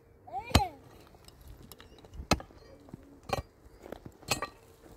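Four sharp clinks or knocks about a second apart, the first the loudest, with lighter ticks between them. A short cry overlaps the first strike.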